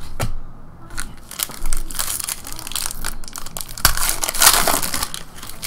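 Foil wrapper of a Panini Prizm football card pack crinkling in the hands and being torn open, with a sharp crack about four seconds in and the loudest crackling just after it.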